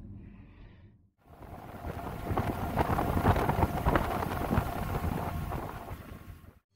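Ferry under way: wind buffeting the microphone over the rush of the wake and engine, fading in about a second in and fading out near the end.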